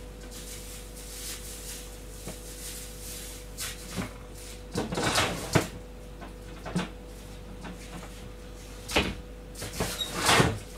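Someone rummaging through kitchen storage while searching for something: a series of knocks, rustles and clattering of doors and containers, loudest about five seconds in and again near the end, over a faint steady hum.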